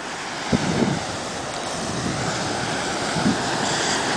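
Atlantic surf breaking and washing up the beach: a steady rushing that slowly swells louder, with wind buffeting the microphone. A brief sharp knock about half a second in.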